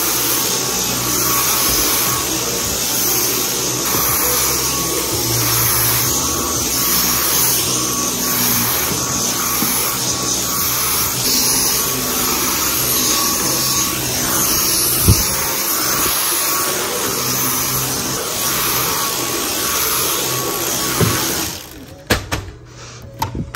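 Household vacuum cleaner running steadily with a thin whine, switched off near the end. There is a single sharp knock about fifteen seconds in.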